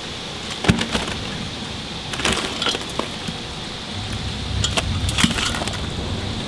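Boiled crawfish, corn and potatoes tumbling out of an enamel colander onto a newspaper-covered table: a scatter of knocks and clatters, over the steady hiss of heavy rain. A low rumble of thunder comes in about four seconds in.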